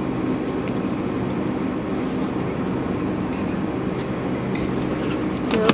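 Steady low hum and rumble of a store's background noise, with a few faint clicks; a voice is heard briefly near the end.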